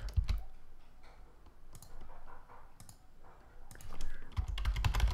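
Computer keyboard and mouse clicking: a few scattered clicks near the start and again a little before two seconds in, then a quick run of key and button clicks from about four seconds in, with low thuds underneath.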